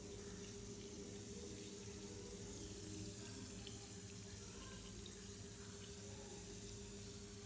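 Lush bath bomb fizzing in bath water: a faint, steady hiss with a few tiny pops, over a low steady hum.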